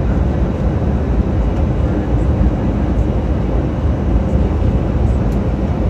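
Steady jet cabin noise inside an Airbus A319 descending through cloud: the even hum of the engines and airflow, heaviest in the low end.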